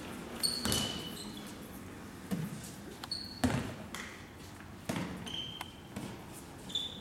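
A handball bouncing and being caught on a sports-hall floor, a handful of scattered thuds that echo around the hall, with short high squeaks of players' shoes on the floor.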